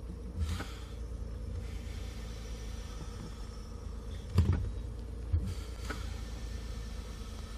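A 2007 Ford Edge's brake pedal is pressed with the engine running. A steady low hum runs throughout, with three short knocks from the pedal and booster; the loudest comes about four seconds in. This is the brake noise that leads to replacing the brake booster.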